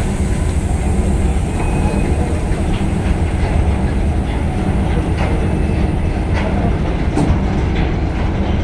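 EP1M electric locomotive and train moving slowly at low speed: a steady low rumble with scattered clicks and knocks of wheels on the rails.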